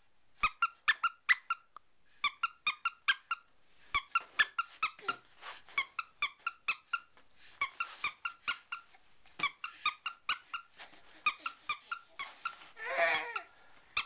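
A squeaky plush toy squeezed repeatedly by hand, giving short, high squeaks in quick runs of three to five, with short pauses between the runs.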